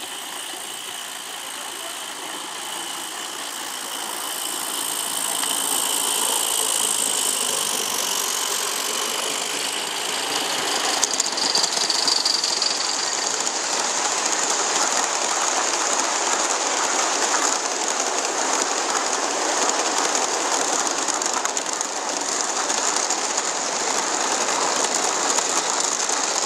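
G scale live steam locomotives running on a garden railway track: a steady hiss of steam with the wheels running on the rails, getting louder over the first six seconds as a train of freight cars passes close by.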